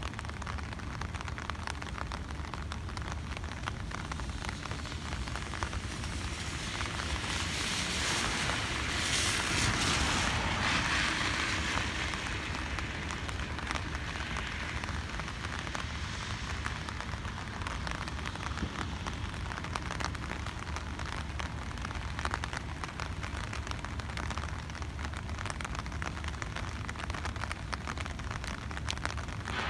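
Steady outdoor background noise with a constant low rumble and scattered faint ticks. It swells louder for a few seconds about a third of the way through, then settles back.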